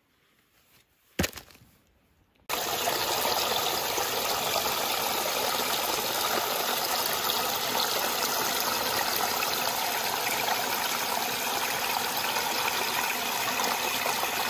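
A small stream splashing steadily over rocks in a little cascade, cutting in suddenly a couple of seconds in. Before it, near silence broken once by a short sharp click.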